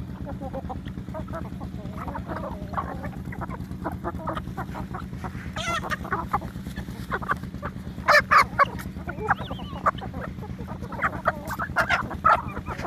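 A flock of Aseel chickens feeding on scattered grain and clucking softly almost without a break. A few louder, sharp calls come about eight seconds in and again near the end, over a steady low hum.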